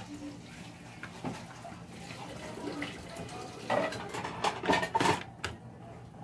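Small hard PC parts being handled by hand: light clicks, taps and clatter, busiest about four to five seconds in.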